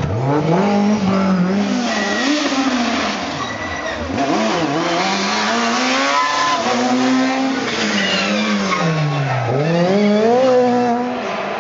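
Rally cars taking a tight hairpin one after another: a BMW M3 E30, then a Fiat Grande Punto S2000 and a Peugeot 206. Each engine's pitch drops under braking into the bend and climbs again through the gears as it accelerates out, with tyres squealing.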